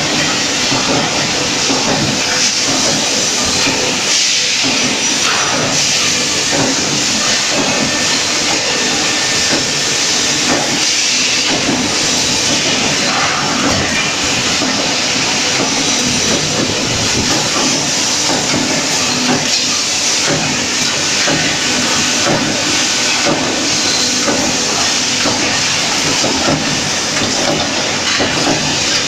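Wheel rim flash butt welding line running: a loud, continuous hissing and crackling noise over a steady low machine hum.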